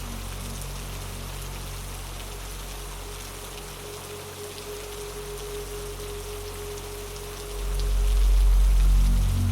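Steady rain hissing, with scattered single drops ticking through it, over a low dark ambient synth drone. A held mid-pitched tone sounds through the middle. About eight seconds in, a deep bass swell rises and becomes the loudest thing.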